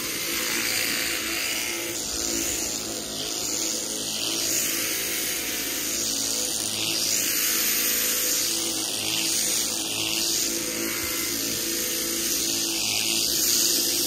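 Electric shearing handpiece running steadily with a constant motor hum as it cuts wool from a fly-struck sheep.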